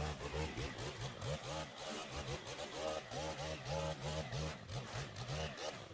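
Petrol lawn mower engine running, its pitch wavering up and down as it works.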